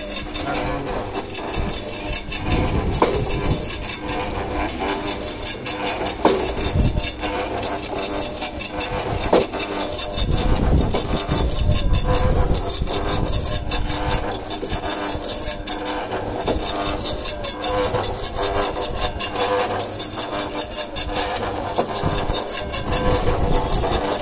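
Hobart gravity-feed slicer running: a steady motor hum from the spinning circular blade as blocks of cheese are fed across it, with a hiss that swells and fades every few seconds and a few low knocks.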